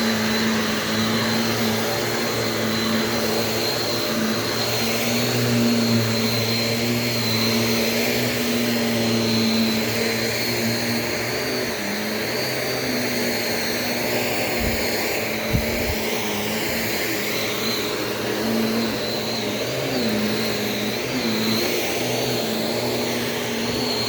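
Shark Navigator DLX bagless upright vacuum running steadily with its suction turned down, a constant motor hum with a high whine over it. Two brief low knocks sound about halfway through.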